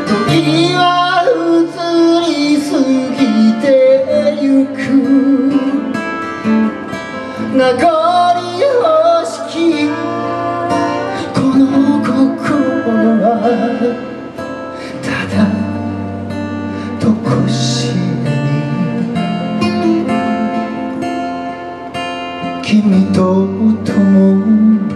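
Live acoustic guitar music: acoustic guitars strummed and picked, with singing over them.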